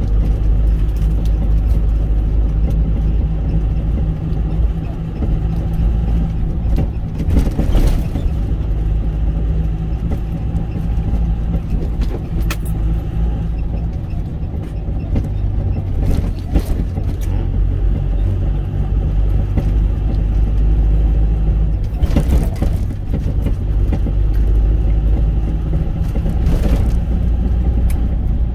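Truck engine and road noise heard from inside the cab while driving: a steady low drone, with a few short sharp noises over it.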